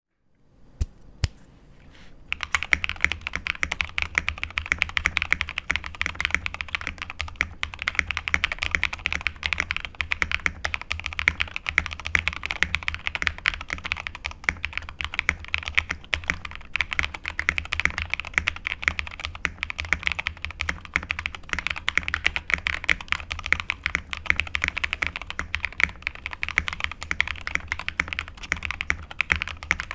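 Keydous NJ68 custom mechanical keyboard with Cobalt POM switches on a stainless steel half plate, dampened with IXPE switch foam, being typed on: a few single keystrokes, then fast, continuous typing from about two seconds in.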